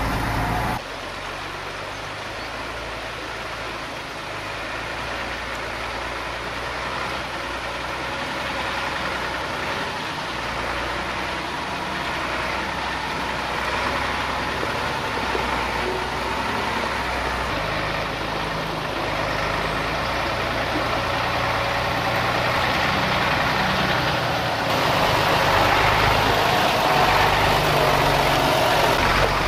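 Scania 4x4 camper truck's diesel engine running at low speed as the truck crawls over a stony riverbed, growing louder as it comes closer.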